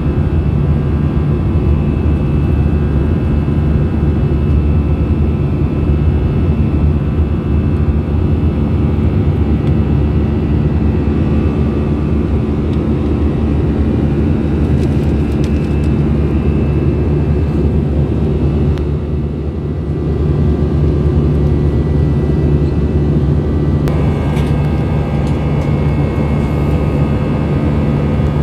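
Cabin noise of an Airbus A319 in flight, heard from a window seat beside the engine: a steady jet-engine drone with a low rumble and a whine of fixed tones. Near the end a higher whine comes in more strongly.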